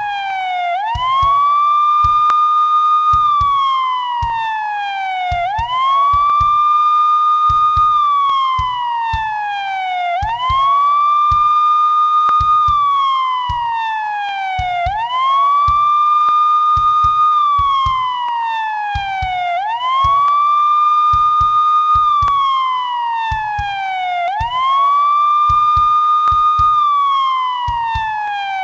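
Police siren on a wail cycle: each cycle rises quickly, holds a high note for a second or two, then falls slowly, repeating about every four to five seconds, six times in all. Faint low knocks sound irregularly underneath.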